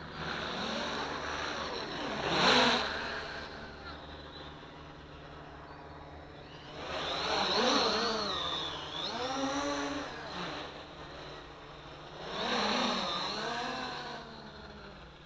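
XK X350 quadcopter's motors and 8-inch carbon propellers whirring in flight, the pitch sweeping up and down in arches. It is loudest in three spells: briefly a couple of seconds in, for a few seconds around the middle, and again near the end.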